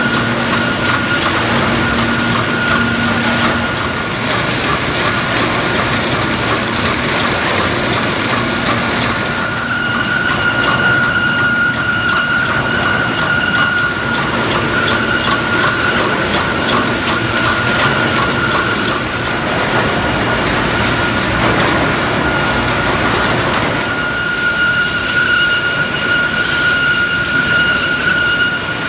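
High-speed packaging machine wrapping individual frozen hamburger patties: a loud, steady mechanical din with a rapid, regular clicking. A high whine comes and goes over it.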